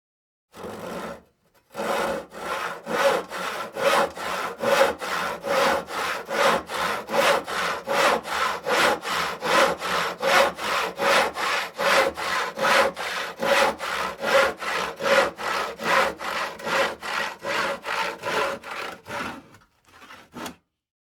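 Hand crosscut saw cutting wood in quick, even back-and-forth strokes, about two and a half a second. It starts with a single short stroke and stops near the end after one last short stroke.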